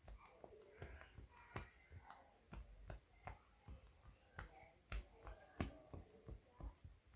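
Glass marbles clicking as they are handled and dropped into a silicone pop-it fidget toy: faint, irregular sharp clicks, two or three a second.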